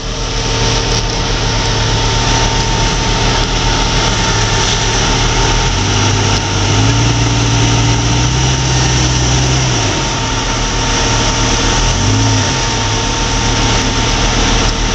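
Jeep Cherokee XJ engine running slowly under light throttle while crawling toward a manhole; it revs up for a few seconds about halfway through, drops back, then revs briefly again a couple of seconds later.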